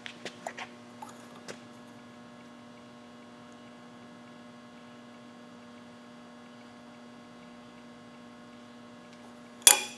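Steady electrical hum with a few faint clicks in the first second and a half, then a single sharp clack near the end.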